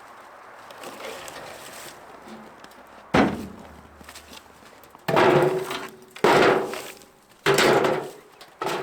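Pieces of slab wood knocking together as they are tossed and handled. There are five loud wooden thunks, each with a short ring: one about three seconds in, then four close together over the last four seconds.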